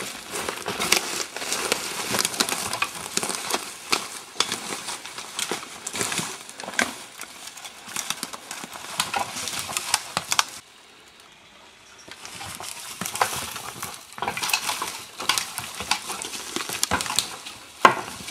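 Steady crackling and rustling of dry twigs and brush in thick timber, full of small sharp snaps. It drops away for about a second and a half just past the middle, then picks up again.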